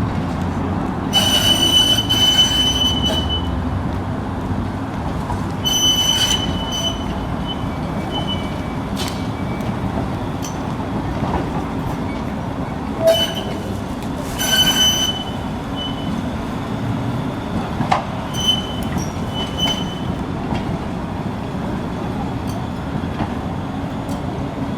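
Tram wheels squealing in repeated high-pitched bursts as the car rounds a tight curve on the turning triangle, over a steady rumble of the car running on the rails.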